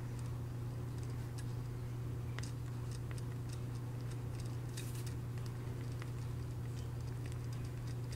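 Gel pen writing on a paper sticker sheet: faint, scattered ticks and light scratches over a steady low hum.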